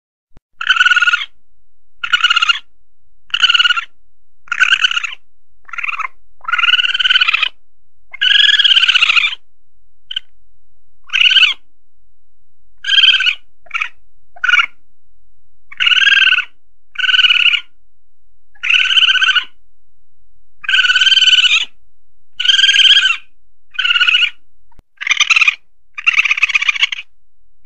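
Asian palm civet (musang) calls played as a hunting lure to draw wild civets: a string of short calls, roughly one a second with uneven gaps. Most are brief, and a few are drawn out and arch up and down in pitch.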